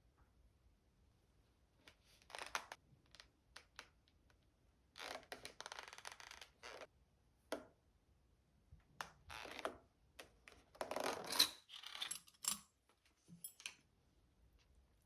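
Close handling noises: a scattered series of short rustles, scrapes and clicks. A longer rustle runs from about five to seven seconds in, and the loudest burst comes about eleven seconds in.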